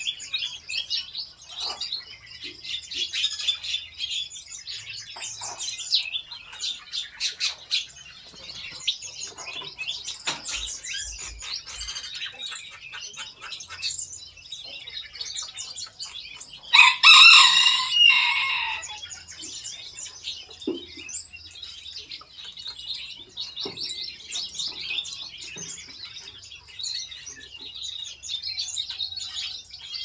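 Small birds chirping and twittering steadily in an aviary, with a rooster crowing once, loudly, a little past halfway through.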